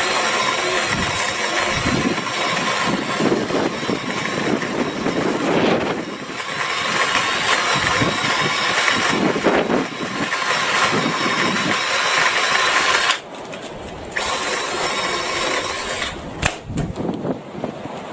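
BLACK+DECKER 18V cordless saw running while cutting garden tree branches: a steady motor whine that dips briefly about six seconds in, stops about thirteen seconds in, then runs again for about two seconds. A sharp crack comes near the end.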